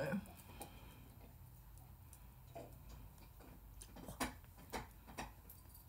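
Faint, irregular soft taps and clicks of a damp beauty-blender makeup sponge being dabbed against the face and neck.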